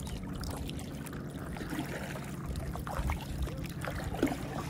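Lake water trickling and lapping around a stand-up paddleboard as it is paddled, with scattered small splashes and drips under a steady low rumble.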